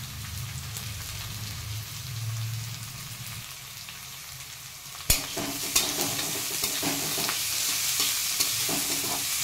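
Chopped onion, garlic and carrot sizzling in hot oil in a metal kadhai. About five seconds in, a metal spatula knocks against the pan and stirring begins: the sizzle grows louder, with scraping and clicks of the spatula on the pan.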